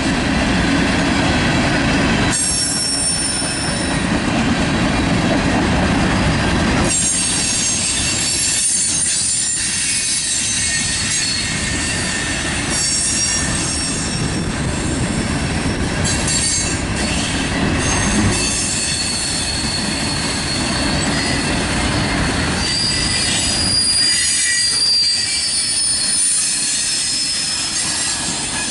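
Freight train of tank cars and covered hoppers rolling past, a steady rumble and clatter of steel wheels on rail. High-pitched wheel squeals come and go several times, the longest near the end.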